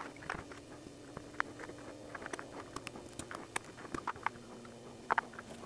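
Faint, irregular light clicks and taps from a ratchet wrench and its parts being handled, at a few clicks a second.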